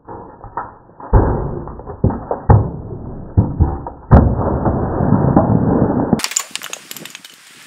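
Car tyre rolling onto a full aluminium drink can and crushing it: a run of muffled crunches and sharp cracks, then about six seconds in a sudden hiss as the pressurised cola bursts out and sprays from under the tyre.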